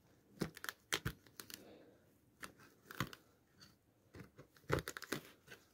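Crumbled remains of a sneaker's broken heel counter cracking and tearing as they are pulled out of the heel by hand, in a string of irregular sharp crackles and crunches.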